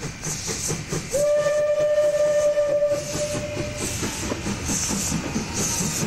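Steam locomotive working past with rhythmic exhaust chuffs; about a second in, its whistle sounds one long steady note lasting about three seconds.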